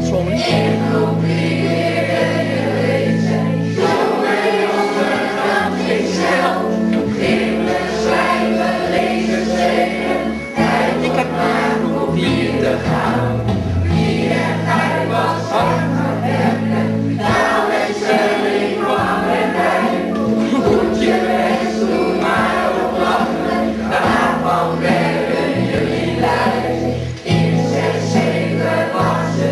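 A group singing a song together over instrumental accompaniment with held bass notes that change every second or two.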